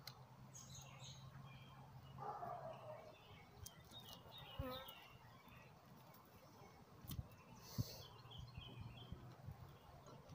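Faint outdoor ambience: birds chirping on and off over a low hum of honeybees from an open hive, with a few light knocks about halfway through and again later.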